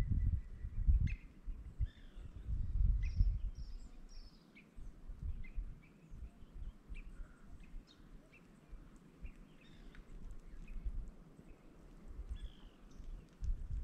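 Birds chirping and calling, short high calls scattered throughout. Under them are irregular low rumbles, loudest at the start and again around three seconds in.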